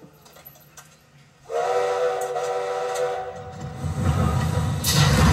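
A steam locomotive's whistle blows one steady chord for about two seconds, then a low rumble of the train getting under way, with a loud burst of steam hiss near the end.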